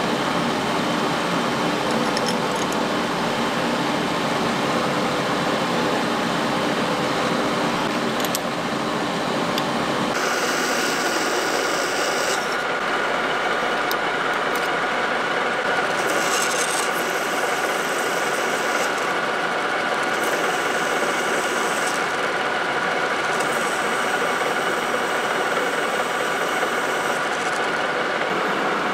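A metal lathe running, with a twist drill in the tailstock chuck boring into the spinning workpiece. It makes a steady rubbing cutting noise with a steady high whine that sets in about ten seconds in.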